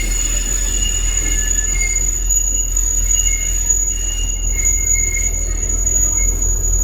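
Passenger train running with its steel wheels squealing on the rails: high, thin whines that come and go over a steady low rumble.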